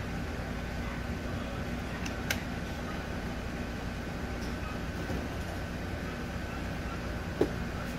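Steady background rumble and hiss with a faint steady whine, broken by two short sharp clicks, one about two seconds in and one near the end.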